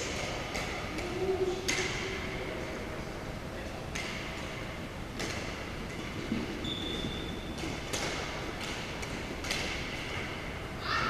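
Badminton rally: sharp racket-on-shuttlecock hits at irregular intervals, one to two seconds apart, ringing slightly in a large hall. A short high squeak comes about two-thirds of the way through.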